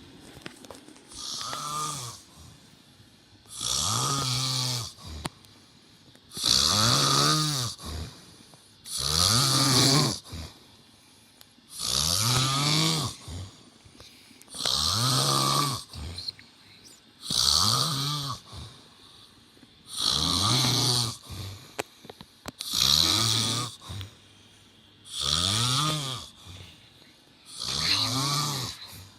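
A man snoring in his sleep, loud and regular: about eleven snores, one every two and a half to three seconds, each rising and then falling in pitch, with quiet gaps between them.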